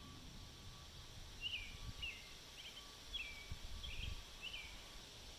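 A bird chirping faintly: a run of short chirps, each sliding down in pitch, about one every half second. Low wind rumble sits underneath.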